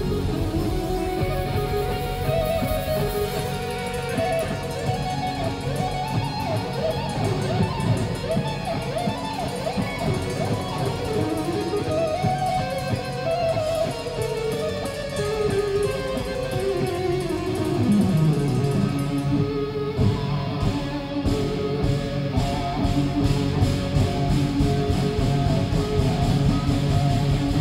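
Live rock band: an electric guitar plays a lead melody full of pitch bends over bass and drums, with a long downward slide in pitch about two thirds of the way in, after which the playing turns more rhythmic with cymbals. The sound is muffled, as heard through a smartphone's microphone.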